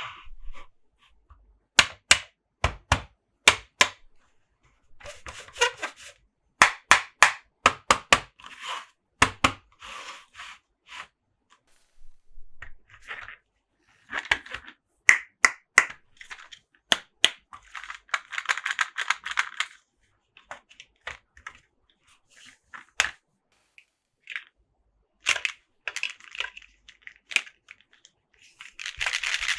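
Close-up handling of plastic Monster Jam toy trucks: sharp clicks and taps, often in quick runs, alternating with stretches of scratchy rustling.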